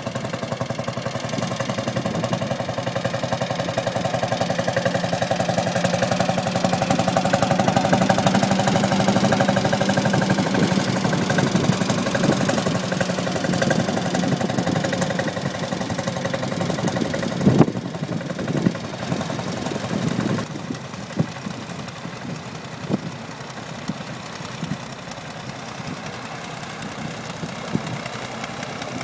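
Vintage tractor engines running as a line of old tractors drives past one after another. The engine note swells over the first ten seconds or so and then eases off. A sharp knock comes about 17 seconds in, and after it the engine sound is quieter and uneven, with separate sharp beats.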